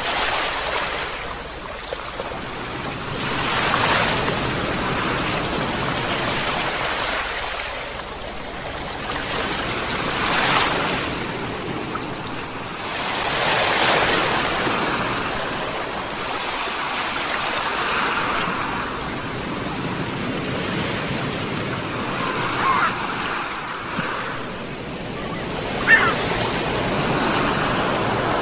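Sea waves washing in and breaking on the shore, swelling and fading every few seconds. Near the end, two short calls of seagulls.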